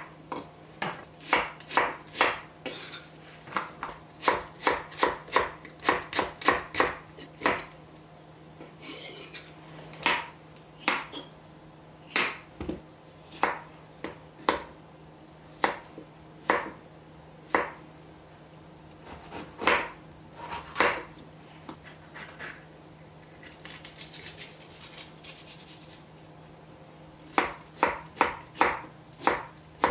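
Chef's knife chopping vegetables on a wooden cutting board: cucumber and bell peppers cut in quick runs of sharp knocks with short pauses, and a longer lull about two-thirds of the way through. A faint steady hum lies underneath.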